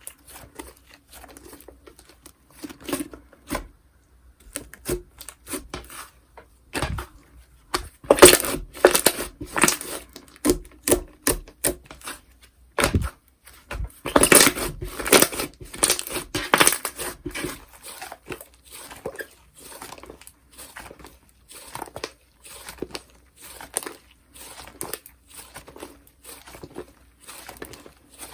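Slime being squished, pressed and pulled by hand, giving a stream of irregular crackling and popping clicks, busiest about a third of the way in and again around the middle.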